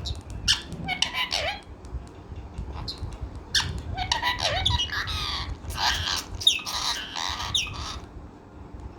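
Pet parrot squawking and chattering in a series of short, harsh calls, several sliding down in pitch, coming thickest in the second half.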